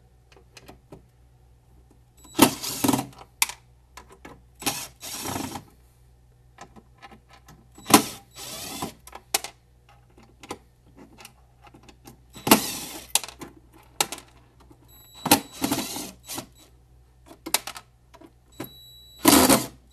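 DeWalt 20-volt cordless impact driver running in six short bursts of a second or so, a few seconds apart, backing Phillips screws out of a console lid's metal hinge bracket.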